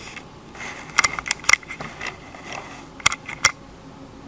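Sharp clicks and taps of the camera being handled, in two quick clusters about two seconds apart, over a faint steady background.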